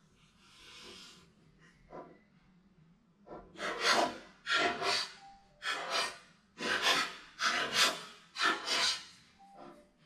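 A small dog nosing and pawing at a plastic treat-puzzle board, making short rubbing, scraping sounds. About ten of them come in quick, uneven succession, starting about three seconds in.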